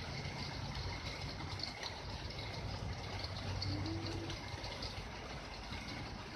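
Rain falling steadily: a continuous hiss with scattered spattering drops. A low hum underneath swells briefly just past halfway.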